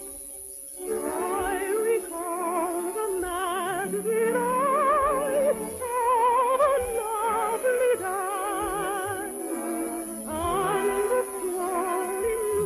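Orchestral operetta music rises about a second in. Its melody line is carried with heavy vibrato, in phrases of a second or two.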